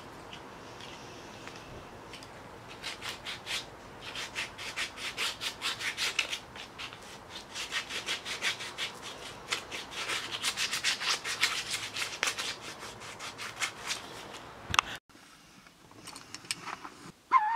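Rhythmic rubbing strokes on a hand-carved wooden spoon, about three strokes a second, in runs with short pauses between them. The strokes stop abruptly about fifteen seconds in.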